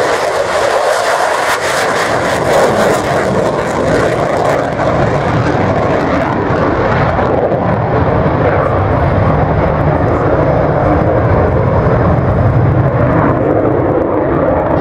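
Lockheed Martin F-35 Lightning II's single Pratt & Whitney F135 afterburning turbofan in a fast pass with the afterburner lit: a loud, continuous jet roar. It has a harsh, hissing top for the first four or five seconds, then turns to a deeper rumble as the jet goes away.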